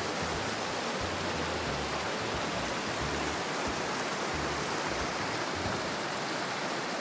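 Waterfall and creek water rushing in a steady, even roar.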